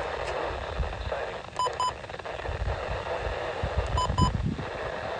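Radio static hiss with two pairs of short, high electronic beeps, the first pair about a second and a half in, the second about four seconds in.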